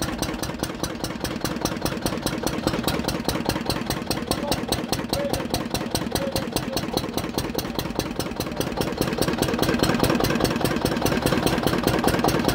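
Lister Start-o-matic stationary diesel generator engine running steadily after a cold start, still warming up. It has an even, regular beat of about six firing strokes a second, a little louder near the end.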